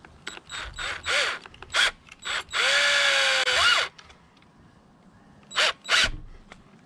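Cordless drill driving screws through a metal sawtooth hanging bracket into wood. Several quick trigger bursts come first, then one longer run of about a second whose pitch sags under load and rises sharply as it is let off, then two more short bursts near the end.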